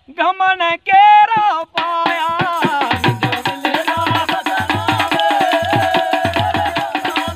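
A man's voice finishes a sung folk line in a few held, wavering notes, then about two seconds in a dholak drum and percussion start a steady folk rhythm under a continuing melodic line.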